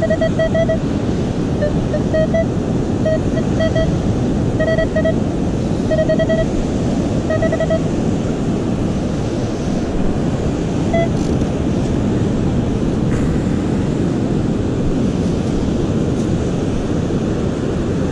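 Metal detector beeping over and over in short pitched tones as the coil is swept over a buried target, which signals the coin in the hole. The beeps stop about eight seconds in, with one more brief beep near eleven seconds, over a steady rush of surf and wind.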